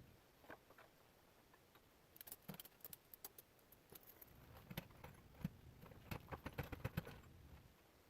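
Faint, scattered clicks and light knocks of hardware and tools being handled during a bumper install, coming in two loose clusters.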